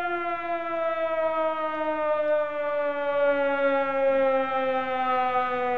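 A long, unbroken siren-like tone rich in overtones, sliding slowly and steadily down in pitch.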